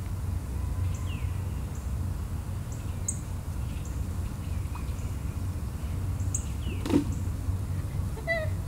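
Outdoor ambience: a steady low rumble with scattered short bird chirps, a quick run of chirps near the end, and a single sharp thump about seven seconds in.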